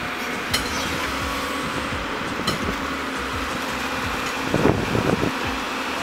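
Tracked excavator's diesel engine running steadily, with two sharp clicks and a cluster of thuds about four and a half seconds in.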